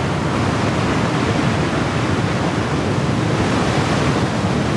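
Water gushing through the sluice openings in a dry dock's concrete wall and crashing onto the dock floor as the dock is flooded: a steady, loud rush like a waterfall.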